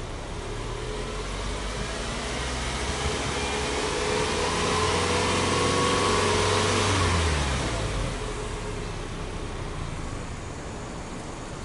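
Subaru Legacy Outback 2.5i's 2.5-litre flat-four boxer engine, heard at the exhaust, free-revved with no load. It climbs slowly from idle a couple of seconds in, holds near its peak, then drops back to idle about eight seconds in.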